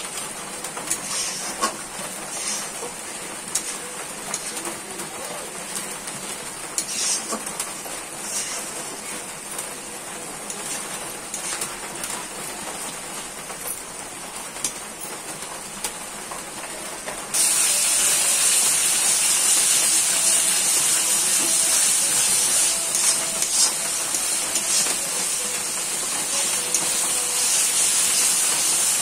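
Onion and spice masala sizzling in hot oil in a wok while a metal spatula stirs and scrapes it. The sizzle gets suddenly louder a little past halfway.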